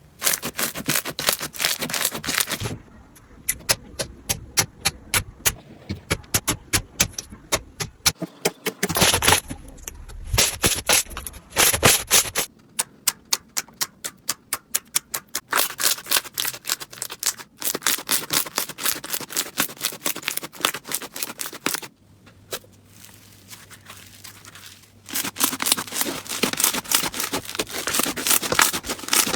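Slime being pressed and worked by hand, giving fast runs of crisp crackling clicks and pops, in a series of short clips that change abruptly every few seconds.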